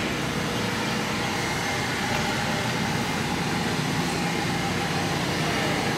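An engine running steadily at constant speed: an unbroken low drone with faint steady tones above it.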